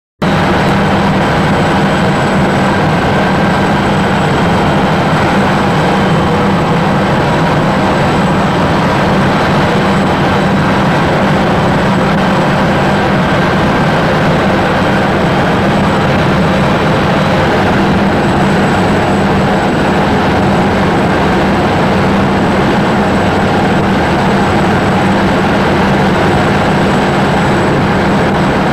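Helicopter in flight, its engine and rotor making a loud, steady drone that does not change, heard from inside the cabin.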